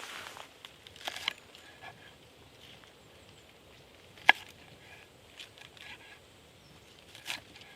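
Scattered light rustles and clicks, with one sharp click about four seconds in.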